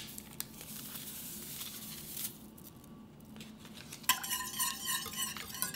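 A faint rustle as a yeast packet is torn open and emptied. About four seconds in, a wire whisk starts beating quickly in a stainless steel saucepan of liquid, with rapid metal-on-metal clinks against the pan.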